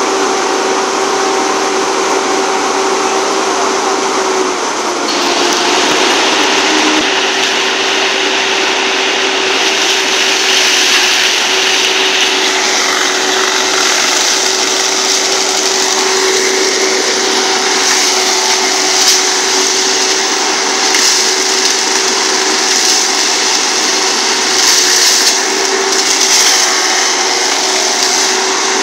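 Volvo EC140 tracked excavator running under load, its engine and hydraulics making a steady whine as the grapple works in brush and drags a log, with a few sharper cracks from brush in the second half.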